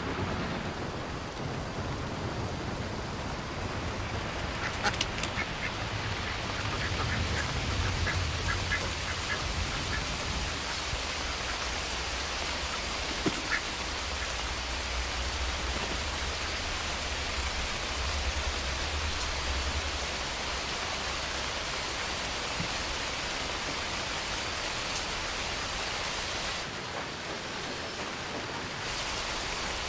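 Steady rain falling, with a duck quacking in a quick run of short calls about a quarter of the way in. A low rumble sits underneath until about two-thirds through.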